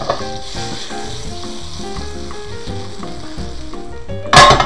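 Herb-and-spice butter and peanut oil sizzling in a hot stainless steel skillet as the pan is swirled, the sizzle fading out about four seconds in. A loud clank comes near the end.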